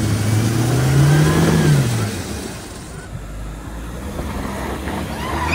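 Car engine revving: its note climbs about a second in and falls back by two seconds, then the car runs on more quietly.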